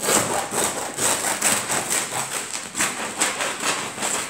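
Bread knife sawing through the crisp crust of a freshly baked no-knead loaf: quick back-and-forth rasping strokes, about four a second.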